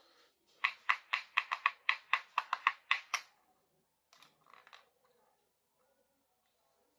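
A quick, even run of about a dozen crisp clicks, roughly five a second, then a few fainter ones a second later: small plastic pieces of a miniature toy kitchen set being handled.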